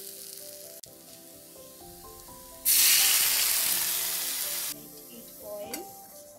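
Water poured into a steel kadai of hot frying masala hits the oil, and the quiet sizzle of the masala jumps about two and a half seconds in to a loud, hissing sizzle with steam that lasts about two seconds before it drops away.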